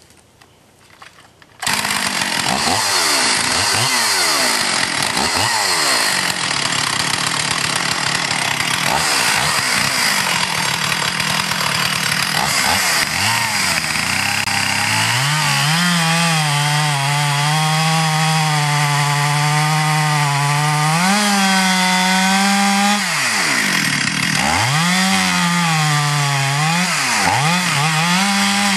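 Modified Stihl MS 440 two-stroke chainsaw at full throttle cutting into a large fir trunk. It comes in suddenly about two seconds in. In the second half its engine note drops and recovers several times as the chain loads up in the wood.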